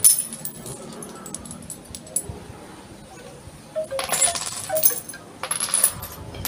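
Strung seashells clinking and rattling against each other as a strand of a shell curtain is handled and tied. There is a sharp clatter at the start and louder bursts of clinking about four seconds and five and a half seconds in.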